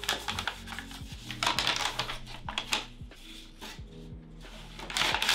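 Packaging rustling and clicking as a light panel is unboxed, over soft background music with steady sustained chords. A louder rustle comes near the end.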